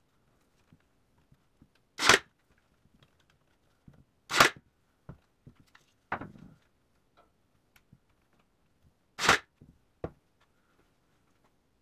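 Brad nailer firing three times, driving brads into the wooden trim: three sharp, loud bangs, the second about two seconds after the first and the third about five seconds later, with a duller knock between them and a few light clicks of handling.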